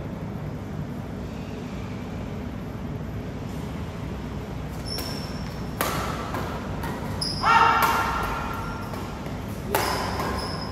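Badminton rackets hitting a shuttlecock during a rally: three sharp hits in the second half, a couple of seconds apart. The loudest, near the middle, is followed by a short ringing squeak. A steady low hum runs underneath.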